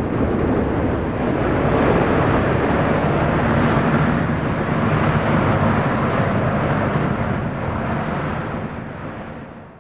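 Four F117 turbofan engines of a Boeing C-17 Globemaster III climbing away after takeoff: a loud, steady jet rumble that fades out near the end.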